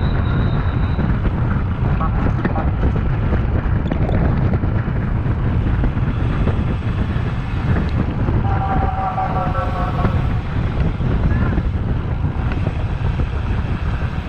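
Wind rushing over the microphone of a camera on a road bicycle being ridden slowly, a steady low rumble. A voice calls out briefly about eight seconds in.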